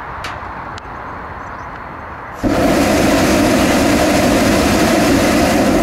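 Hot-air balloon propane burner fired in a ground test: a loud steady roar that starts suddenly about two and a half seconds in and cuts off sharply about three and a half seconds later. Before it, a softer steady hiss.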